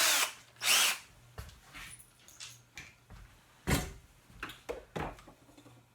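Power drill pre-drilling a pilot hole in a pine shelf board: the steady whine stops right at the start, and a short blip with a rising pitch follows. After that come scattered light clicks and a dull knock about three and a half seconds in.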